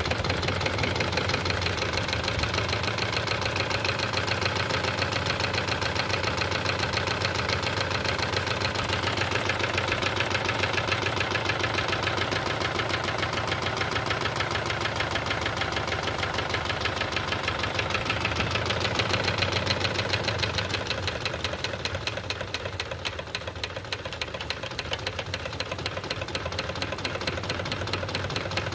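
Wilesco D32 live-steam model engine running steadily under steam, its cylinders and linkages making a rapid, even mechanical clatter. It eases off slightly in loudness about two-thirds of the way through.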